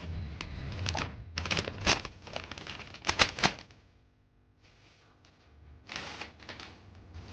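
Packaging being handled and torn open: sharp crinkling and tearing rustles, busiest in the first three and a half seconds, a short lull, then more rustling about six seconds in.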